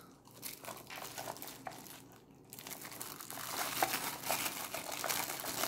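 Clear plastic wrapping on a pack of plastic tumblers crinkling and crackling as it is handled, irregular, thinning out briefly about two seconds in and busier in the second half.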